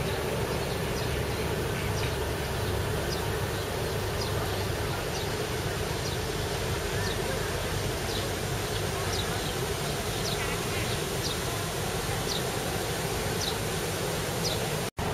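Outdoor ambience: a steady low background hum with short, high, falling chirps repeating every second or so. The sound cuts out for an instant near the end.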